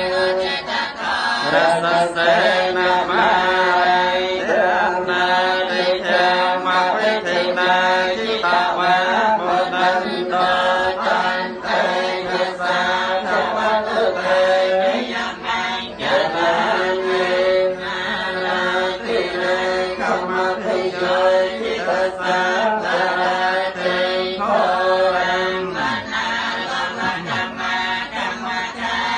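Theravada Buddhist chanting: voices reciting a prayer on a steady sing-song pitch, with brief pauses for breath.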